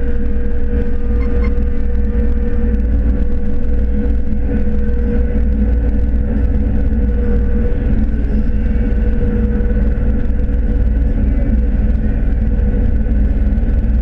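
Inside the cab of a 2012 John Deere S680 combine harvesting corn with a 12-row 612C corn head: the diesel engine and threshing machinery run steadily as a deep rumble, with a constant hum above it.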